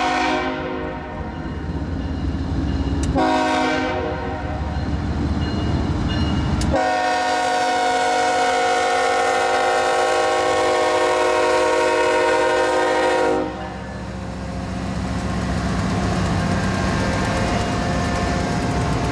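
Diesel freight locomotive's multi-note air horn sounding a chord: the end of one blast, a short blast about three seconds in, then a long blast of about seven seconds. This is the close of the long-long-short-long grade-crossing signal. After the horn cuts off, the locomotives pass with their diesel engines rumbling.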